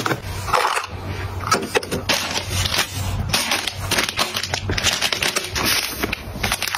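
Soft plastic packs of wet wipes crinkling and rustling as they are handled and slid onto a shelf, with a steady run of irregular crackles.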